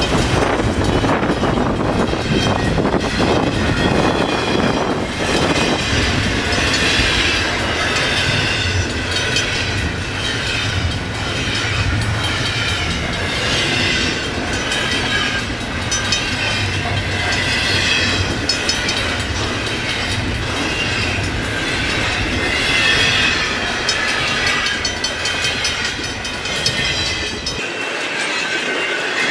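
Freight cars of a long intermodal stack train rolling past, a steady rumble with a regular clickety-clack of wheels over the rails and a wavering high-pitched wheel squeal. The low rumble drops away suddenly near the end.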